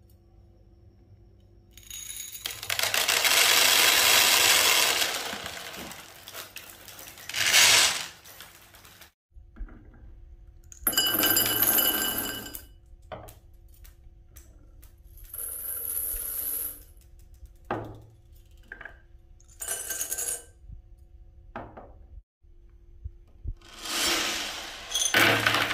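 Marbles pouring and clattering in several separate runs of a few seconds each, some with short ringing clinks.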